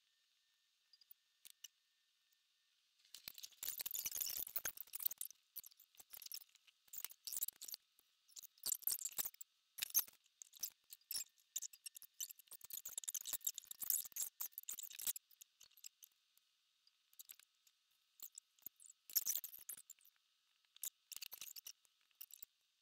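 Intermittent soft rustling and light clicking from hands handling thread and small tools, in irregular bouts a second or two long that begin about three seconds in.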